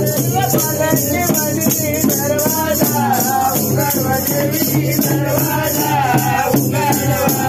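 Men singing a vahi devotional folk song, one voice leading with a bending melody, over two-headed barrel drums and a continuous jingle of small cymbals and tambourines in a steady rhythm.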